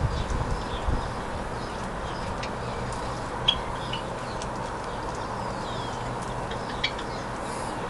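Steady background hiss with a few short, high bird chirps or clicks, two of them sharper about three and a half seconds and about seven seconds in, and a faint falling call partway through; there is a brief low rumble at the start.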